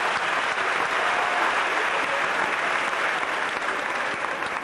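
Audience applauding, a steady clapping that begins to ease off near the end.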